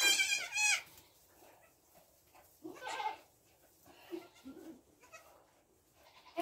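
Nigerian Dwarf goats bleating: two loud, high-pitched bleats right at the start, then a few quieter calls.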